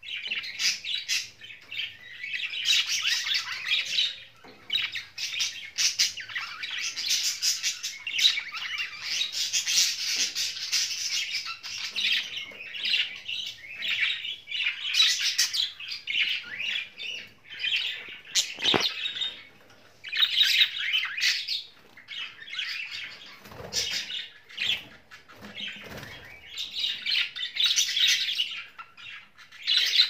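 Budgerigars chattering and warbling in a continuous busy stream of chirps and squawks, broken by short pauses. A single sharp click comes about two-thirds of the way through.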